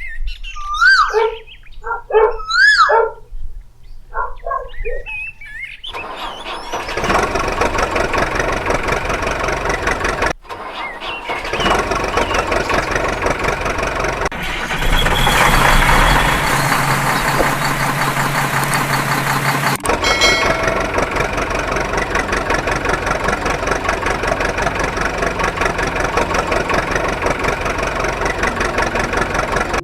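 A few short rising-and-falling whistle-like tones, then a heavy excavator diesel engine running steadily from about six seconds in, broken off abruptly twice.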